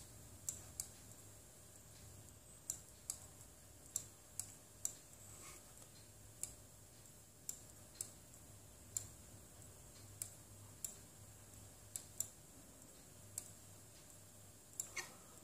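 Faint computer mouse clicks, about twenty sharp, irregularly spaced clicks, some in quick pairs, over a faint low hum from the computer.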